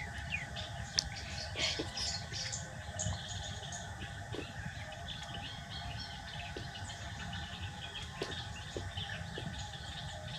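Scattered short, high chirps and falling whistles over a steady low hum.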